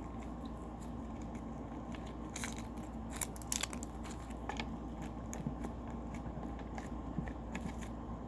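Slime being kneaded by hand as clay is worked into it, making scattered small sticky crackles and clicks over a steady background hum.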